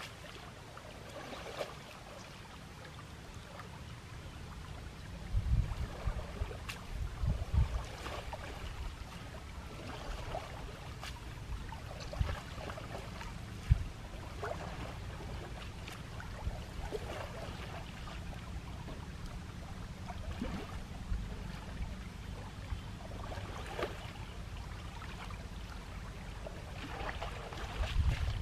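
Shallow river water sloshing and splashing as an Asian elephant wades slowly through it, over a steady low rumble. Louder low gusts of sound come around five to eight seconds in and again near the end, with a few sharp clicks between.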